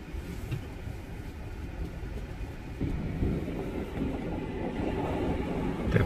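Low rumble of a car driving slowly, heard from inside the cabin, growing louder about halfway through.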